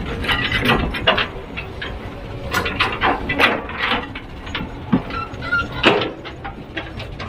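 Heavy machine working: a steady low engine rumble with frequent sharp clanks and short metallic squeals.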